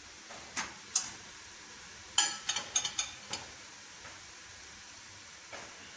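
Sharp metallic clicks and clinks from a wire grill rack and oven being handled as the chicken goes into the oven: two near the first second, then a quick run of five or six about two to three and a half seconds in.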